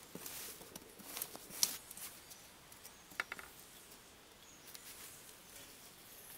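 A rake scraping and rustling through dry wood shavings on bare ground, several strokes in the first two seconds. A few light clinks follow about three seconds in, then it goes quieter.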